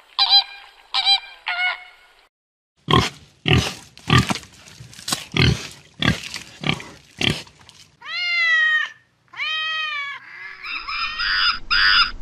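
Flamingos honking, three short calls in the first two seconds. Then pigs grunting, about eight short grunts over some four seconds. Then two long calls that rise and fall, and a jumble of higher calls near the end, from an animal that cannot be told.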